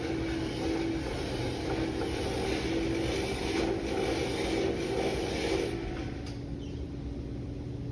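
Pedestal buffing machine running with a brass trombone bell held against its spinning wheel: a steady motor hum with a wavering whir and hiss that rises and falls as the bell is worked. About six seconds in the bell comes off the wheel and the sound drops to the motor's quieter hum.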